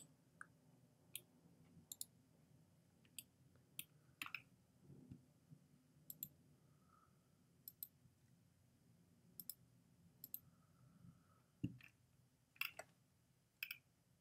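Faint, sharp clicks of a computer mouse and keyboard, about fifteen at irregular intervals, several in quick pairs.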